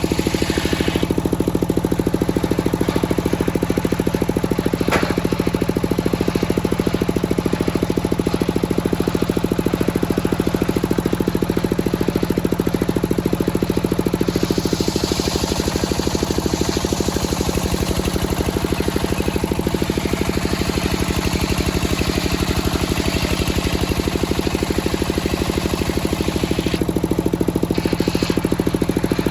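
Engine-driven circular sawmill running steadily, with a low, evenly pulsing engine note throughout. From about halfway in until a couple of seconds before the end, a higher hiss joins as the blade cuts through a teak log.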